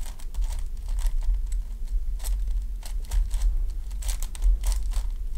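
Plastic 7x7 speed cube turned quickly by hand: irregular clicks and clacks of its layers turning and snapping into place, over a steady low hum.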